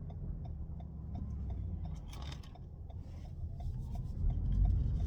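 Inside a moving car: steady low road and engine rumble with a turn-signal indicator clicking evenly, about three ticks a second. A brief scraping rustle about two seconds in.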